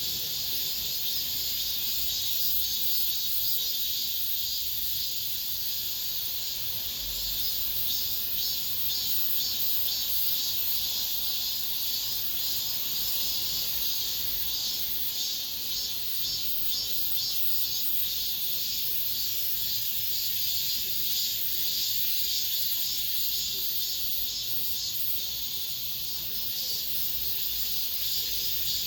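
Chorus of cicadas buzzing steadily and high-pitched, a dense, unbroken drone of late-summer cicada song.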